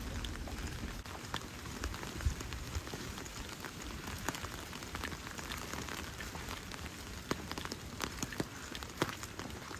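Rain falling, a steady hiss with scattered sharp ticks of drops hitting a nearby surface, and a low rumble in the first second.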